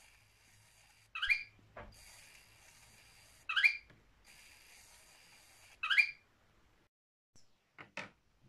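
Lego WeDo 2.0 motor running the inchworm's Technic gear train with a faint steady hum. A short, loud, pitched squeak from the mechanism comes three times at an even pace, about every two and a half seconds. A few sharp plastic clicks follow near the end.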